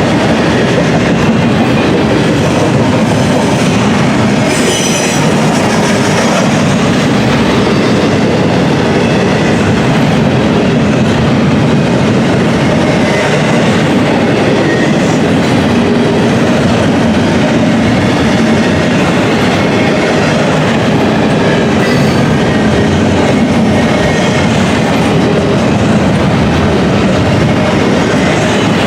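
Freight cars of an intermodal container train rolling steadily past, wheels clattering over the rail joints, with a brief high wheel squeal about five seconds in.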